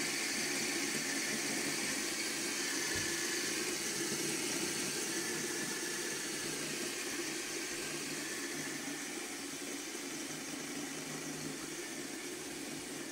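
A steady whir from many fidget spinners spinning at once on a tabletop. It gets slowly quieter as they lose speed.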